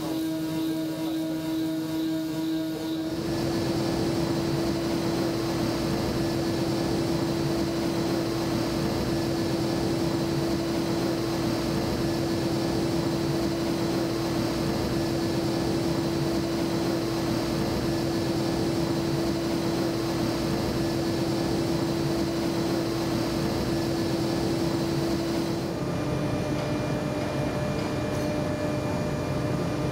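CNC machining of a grey cast iron (GG25) engine block: a steady spindle hum over a continuous cutting hiss. The sound changes abruptly about three seconds in and again near the end, as the shots switch between tools: a screw-in milling cutter, then a thread mill, then a 1 mm solid carbide ball nose end mill.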